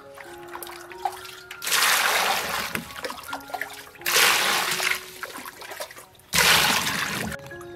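Water poured three times onto cucumbers in an aluminium basin, each pour splashing for about a second.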